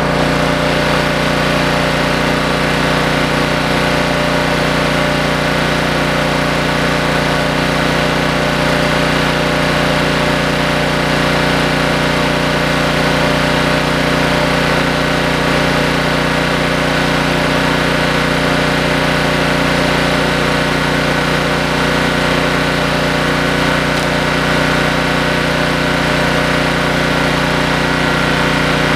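Honda EG1400X portable generator's engine running steadily at a constant speed, still without an electrical load.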